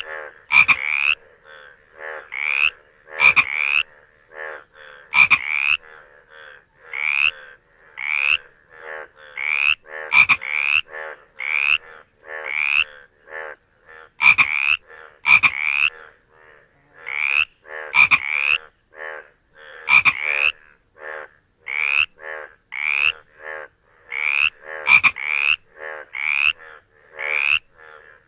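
Frogs croaking in a steady series of short calls, a little more than one a second, with now and then a sharp click among them.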